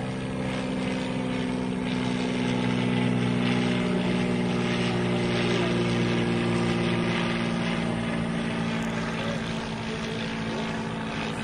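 Single-engine light propeller plane flying overhead while towing a banner: a steady engine-and-propeller drone that swells in the middle and eases slightly near the end.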